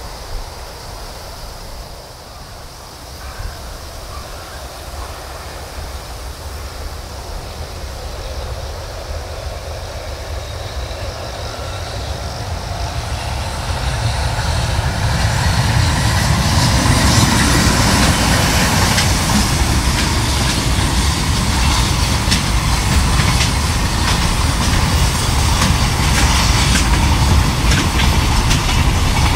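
EH500 electric locomotive hauling a container freight train, growing louder as it approaches and then passing close by as a steady heavy rumble. The passing wagon wheels add many sharp clicks.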